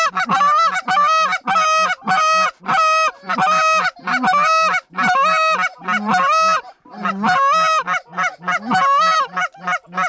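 Hand-blown goose call honking and clucking in a fast, even series, about two or three notes a second. Each note breaks from a low tone up to a higher one, calling to circling Canada geese to bring them back in.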